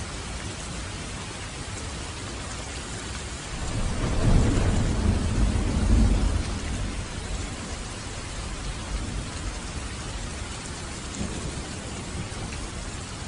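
Steady rain falling, with a rumble of thunder that swells about four seconds in and fades away a few seconds later.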